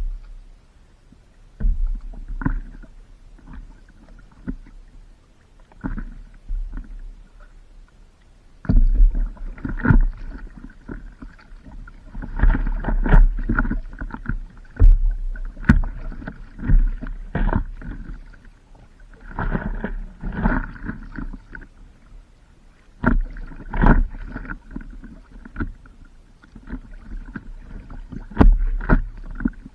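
Water splashing and sloshing around a stand-up paddleboard, coming in irregular surges with a heavy low rumble on the microphone.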